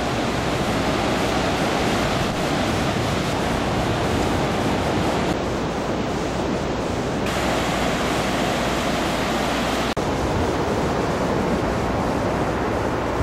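Steady rushing noise of wind and surf, an even hiss with a brief dropout about ten seconds in.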